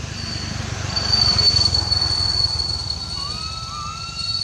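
A steady high-pitched whine over a constant low rumble. About three seconds in, a baby macaque gives a rising cry that levels off and is held for about a second.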